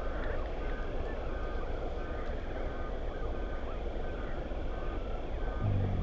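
A regular series of short, flat-pitched beeps, about two a second, over a steady low rumble.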